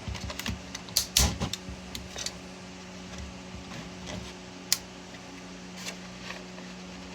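PLA support material being snapped and peeled off a 3D print by hand: a few sharp plastic cracks and clicks, a cluster about a second in and a sharp single snap near the middle, over a steady low hum.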